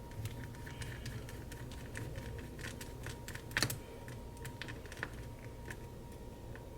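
Irregular light ticks and clicks from a precision screwdriver and tiny screws as screws are taken out of a MacBook Pro, with one sharper click about three and a half seconds in. A faint steady hum lies underneath.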